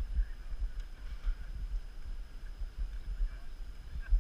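Wind buffeting the microphone: an uneven low rumble that rises and falls in gusts.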